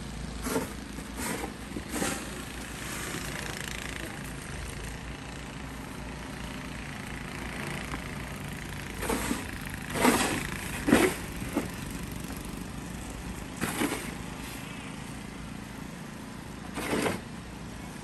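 Snow shovel scraping into and lifting snow in about eight separate strokes, the loudest a pair about ten seconds in. Under them, a snowblower engine runs steadily.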